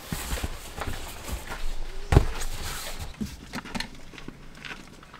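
Knocks, thumps and rustling from a sleeping mat and sleeping bag being handled and smoothed out on the floor of a car's cargo area, with one louder thump about two seconds in.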